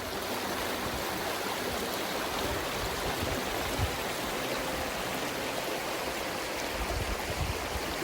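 Flowing water rushing steadily, with a few short low thumps partway through and near the end.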